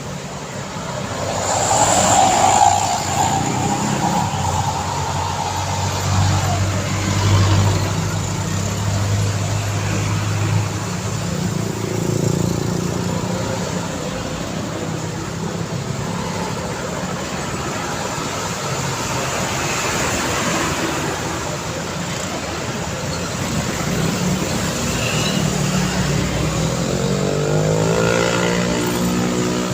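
Busy road traffic: cars and heavy trucks passing at close range, a steady mix of engine and tyre noise. A loud vehicle goes by about two seconds in, and near the end an engine rises in pitch as it speeds up.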